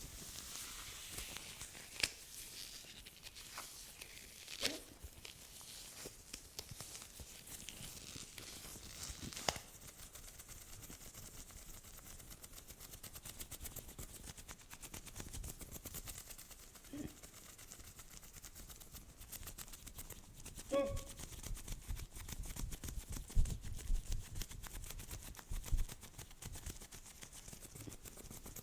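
A woman hiccuping: several short, sharp hiccups spaced a few seconds apart, a couple of them with a brief voiced catch.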